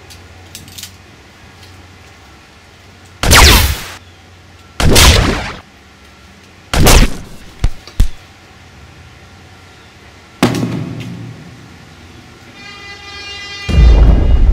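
A series of loud gunshot-like blasts, each dying away over about half a second: three blasts, then two short cracks and a fourth blast. Near the end a loud low horn-like tone swells in and holds.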